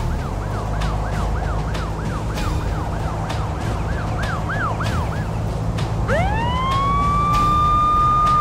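Police car siren, first in a fast up-and-down yelp of about two sweeps a second, then about six seconds in switching to a long wail that rises and holds high. A low steady rumble runs beneath.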